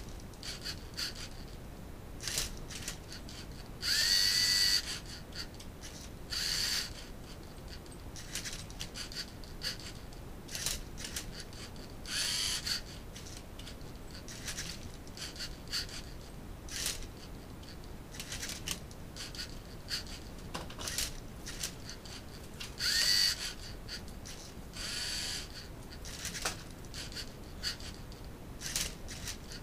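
LEGO Mindstorms NXT servo motors of a Rubik's cube solving robot whirring in short irregular bursts as the robot flips and turns the cube, with small plastic clicks between moves. Twice a longer run has a rising whine.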